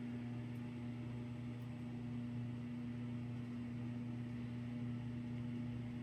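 Vintage Commander/Moss vented spinner ceiling fan motor running on a solid-state speed control, giving a steady electrical hum with a low and a higher tone over faint air noise. Its hum is rated high end of bedroom, maybe low end of living room, in loudness.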